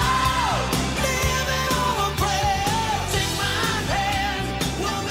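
Background rock-style music: a sung vocal melody over a steady drum beat and bass.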